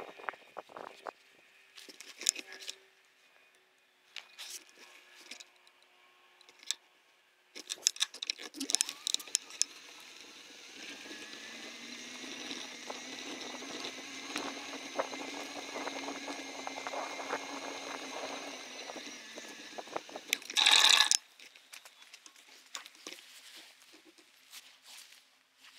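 Bicycle rolling along a dirt woodland trail, with scattered clicks and rattles from the bike. About ten seconds in it settles into a steadier rushing noise, which is cut off by a short loud burst near the end.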